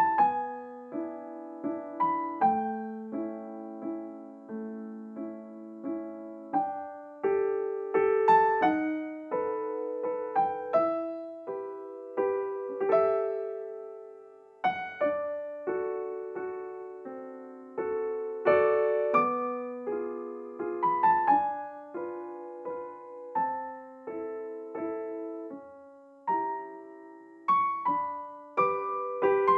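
Background piano music: a slow piece of single notes and chords, each struck and left to die away.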